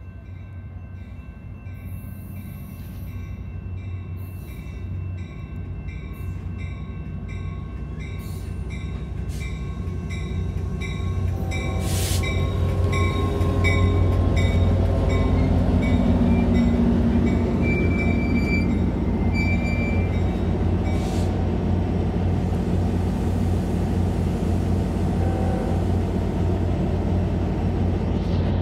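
Amtrak passenger train pulling in alongside the platform. The rumble of its diesel locomotive and wheels grows steadily louder, peaks about halfway through and then holds. A grade-crossing bell dings evenly, about one and a half strikes a second, through the first half until the train's noise covers it.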